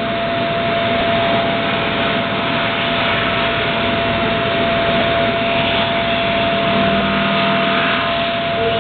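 CNC milling machine running and machining, a steady mechanical noise with one constant whine over it.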